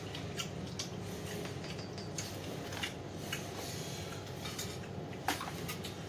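Light clinks and clicks of tableware and food being handled at a table, scattered and irregular, over a steady low hum. The sharpest click comes about five seconds in.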